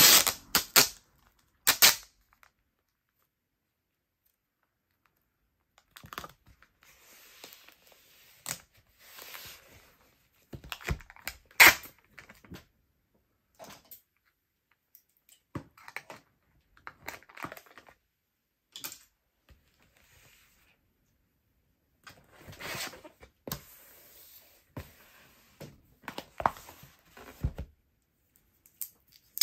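Plastic packing tape being pulled off its roll and pressed onto a cardboard mailer box: sharp tearing snaps and rubbing, in irregular bursts with a near-silent pause a few seconds in.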